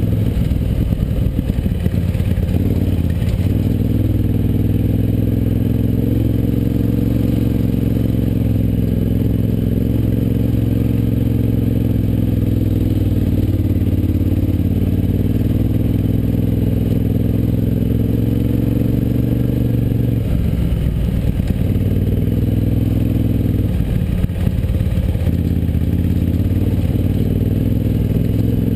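KTM 950 Adventure's V-twin engine running steadily as the motorcycle rides a rough dirt track, with the throttle eased off briefly about twenty seconds in and again a few seconds later. A light clatter from the bike over the track runs underneath.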